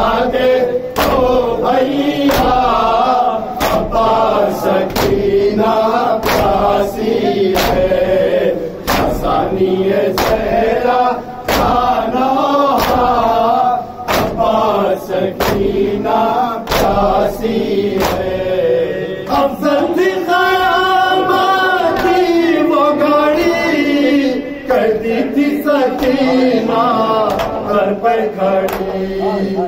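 Group of men chanting a nauha, a Shia mourning lament, in unison, with sharp slaps of hands striking chests (matam) about once a second. The slaps thin out for a few seconds past the middle while the chant carries on.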